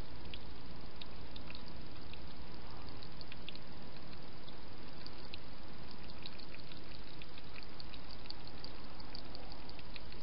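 A hedgehog feeding at a dish: a scattered run of small, quick wet clicks and smacks from its mouth, thicker in the second half, over a steady hiss.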